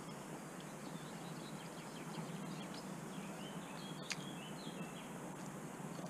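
Faint outdoor ambience with a steady hiss, and small birds chirping in short high calls, mostly in the middle. One sharp click comes about four seconds in.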